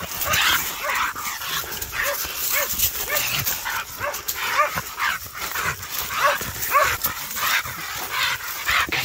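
Hog-hunting dogs barking steadily at about two barks a second, baying a wild hog they have stopped in the brush.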